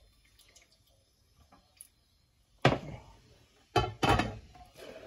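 Cookware being handled: a ceramic bowl taken out of a steamer pan and the glass lid set back on the pan. Quiet small clicks, then three sharp clacks in the second half.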